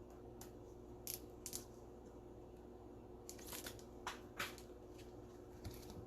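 Faint handling of trading cards: sparse short clicks and scrapes, a couple about a second in and a cluster between about three and four and a half seconds in, over a faint steady hum.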